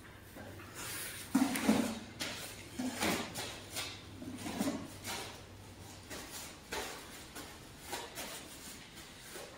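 Irregular light knocks and rustles from handling in a kitchen, including hands being dried with a paper towel, over a faint low hum that stops about six seconds in.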